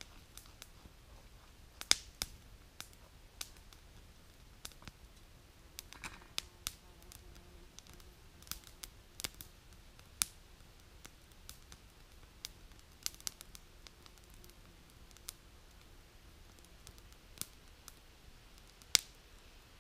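Wood campfire crackling, with scattered sharp pops at irregular intervals; the loudest come about two seconds in and near the end.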